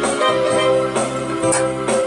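Instrumental background music with held chords over a steady beat.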